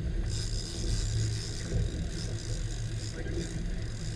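Twin Suzuki 200 outboard motors idling with a steady low hum, under a hiss of water and wind.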